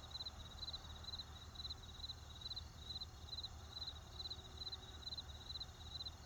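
Crickets chirping in a steady rhythm, about two chirps a second, each chirp a quick run of pulses, over a steady low rumble of distant traffic.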